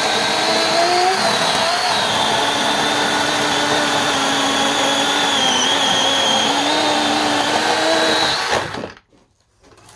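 DeWalt 20V XR brushless 12-inch battery chainsaw running and cutting through seasoned cherry logs, a steady electric-motor whine that wavers a little in pitch under load. The motor is released and cuts off near the end.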